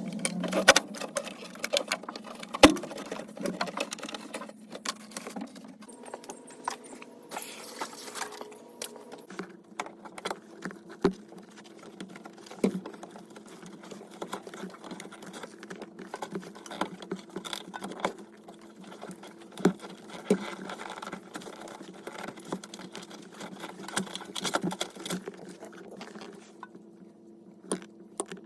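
Rapid, scattered clicking and clattering of hand work on a car's wiring and fittings, with a steady low hum underneath.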